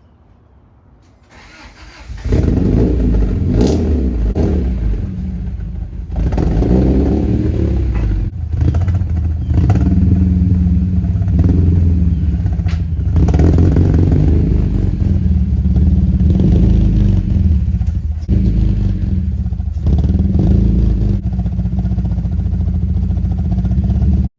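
A motor running loudly, starting about two seconds in, with a steady low hum and brief dips every few seconds.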